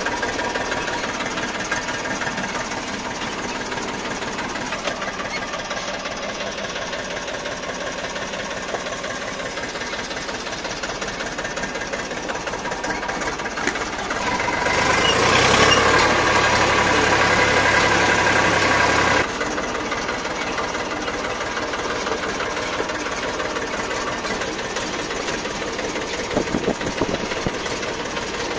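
Tractor diesel engine running steadily with a knocking clatter. For about five seconds past the middle it gets louder with a low hum added, then drops back suddenly.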